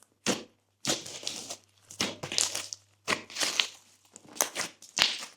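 Glossy slime being squeezed and pressed by hand, giving a run of about six sticky crackling pops with short pauses between them.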